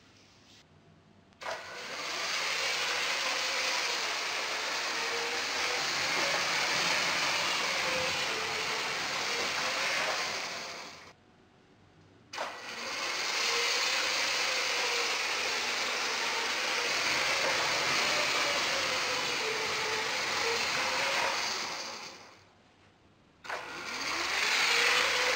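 Lego electric train running on plastic track: a wavering motor whine over the rattle of wheels and gears. The whine rises as the train speeds up and fades as it slows. It drops out twice for about a second, and each time it starts again with a click.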